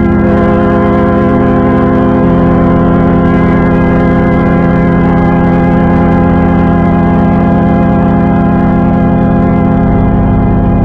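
Loud, sustained organ-like chord made by the 4ormulator audio effect. Its held notes shift about two seconds in, again around five seconds, and once more near the end.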